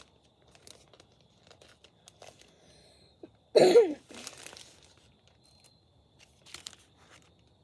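A single short cough about three and a half seconds in, among faint clicks and rustles of something being handled.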